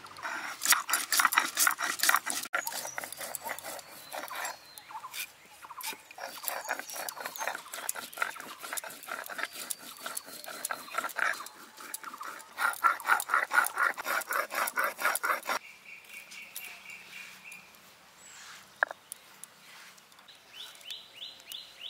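Quick rhythmic scraping and crunching of a stone pestle (nora) rocked over a flat stone grinding slab (shil), grinding whole spices such as coriander and cumin by hand, in long runs of strokes. In a quieter stretch later on there is a brief steady high tone and a short rising sweep, then faint quick strokes near the end.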